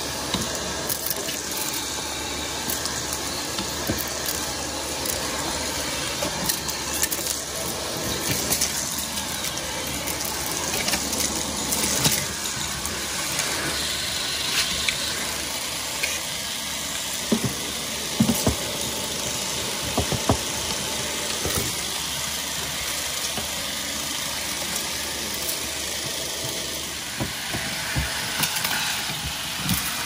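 Vacuum cleaner running steadily, with a few sharp clicks and ticks through the run.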